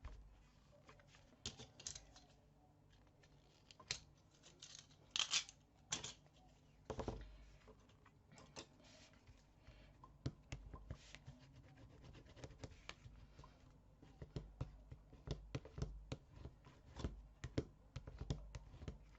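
Double-sided score tape being put down on cardstock: faint, irregular clicks, rustles and scratches as the tape and paper are handled and pressed down.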